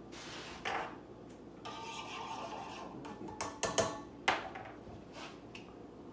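Faint handling noises at a kitchen counter: a second or so of rubbing and scraping, then a few sharp knocks.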